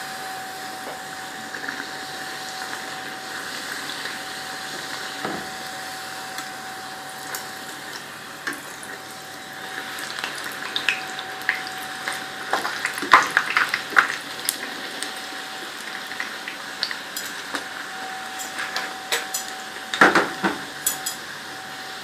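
Puris deep-frying in hot oil with a steady sizzle, while a metal utensil clinks and scrapes against the pan in a few clusters, the loudest about halfway through and again near the end, as the puris are pressed down so they puff.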